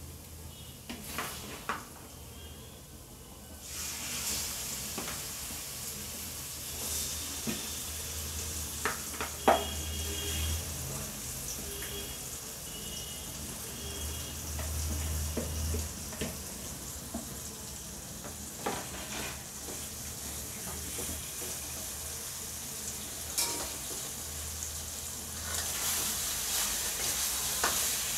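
Marinated chicken pieces sizzling as they fry in hot spiced oil in a metal kadai, the sizzle setting in about four seconds in as the chicken goes into the pan. A perforated steel ladle scrapes and knocks against the pan as the chicken is stirred.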